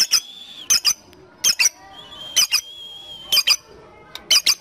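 Lovebird calling in sharp paired chirps, a pair about once a second, over a steady high whistling tone held for a second or more at a time.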